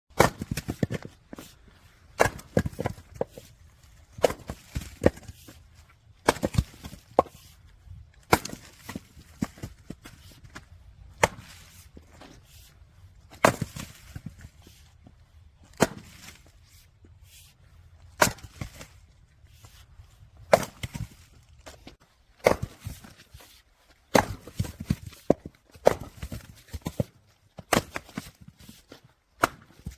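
Firewood being split: a sharp wood crack about every two seconds, each followed by a few lighter clatters of split pieces.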